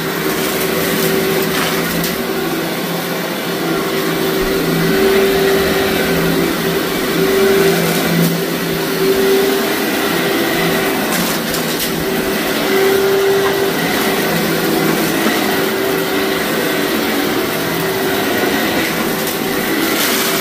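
Bagless canister vacuum cleaner running steadily over heavily soiled carpet, its motor humming under a loud rushing suction, with grit and debris crackling as they are sucked up.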